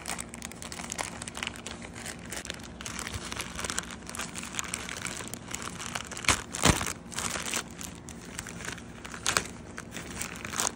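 Plastic poly mailer bag crinkling and rustling as hands open it and rummage inside, with two louder crackles about six and a half seconds in.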